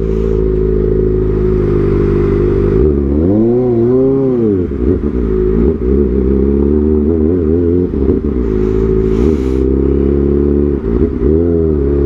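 Kawasaki ZX-4RR's 399 cc inline-four engine running while the bike is ridden. Its pitch climbs and falls back as the throttle is opened and closed about three seconds in, followed by a few smaller blips.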